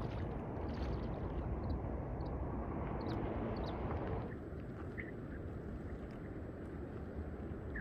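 Shallow river water sloshing and gurgling around a wading angler's legs, a steady outdoor noise that drops and thins abruptly about four seconds in.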